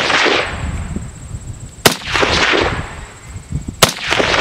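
SKS Paratrooper carbine, a semi-automatic 7.62×39mm rifle, firing two single shots about two seconds apart, each a sharp crack followed by a rolling echo that fades over most of a second.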